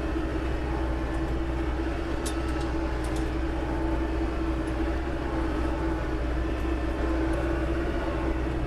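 Tractor engine running steadily with an even drone, and a couple of faint ticks about two and three seconds in.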